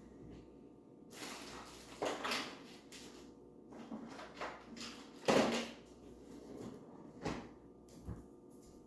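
Paintbrush brushing paint onto a wooden bird house: a series of short, irregular swishing and scraping strokes, the loudest about five seconds in.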